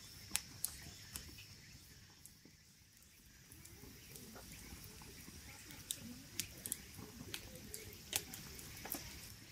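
Knife cutting and shaving wood while carving a wooden kuksa cup: irregular sharp clicks and small scrapes, more frequent in the second half. A faint steady high tone sits underneath.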